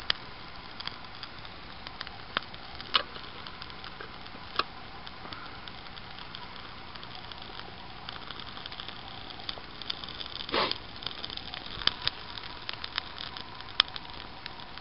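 Small birch-bark and twig fire crackling in a folding pocket stove under a pot, a steady hiss with scattered sharp pops. A brief louder noise comes about ten and a half seconds in.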